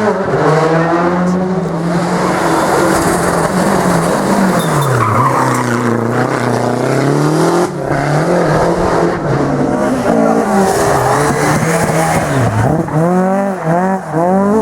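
Rally car engine driven hard, its pitch climbing and falling again and again as it revs through the gears, with two deep drops in revs about five and twelve seconds in, over a hiss of tyre noise.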